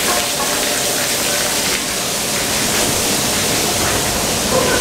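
Steady, loud rushing hiss of automatic car wash equipment in the wash tunnel.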